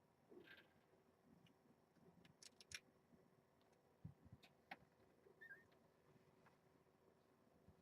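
Near silence, broken by faint scattered clicks and soft rustles, with one tiny high chirp about five and a half seconds in.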